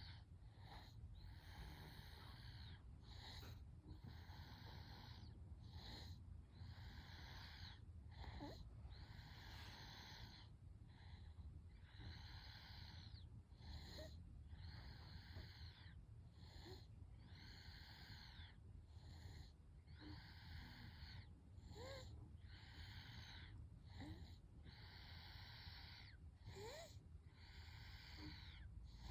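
A baby snoring softly in sleep: faint, wheezy breaths repeating evenly, about one every second and a half, with small squeaks between some breaths.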